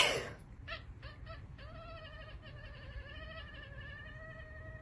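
Orange domestic cat meowing: a few short calls, then one long, drawn-out, wavering meow lasting about three seconds.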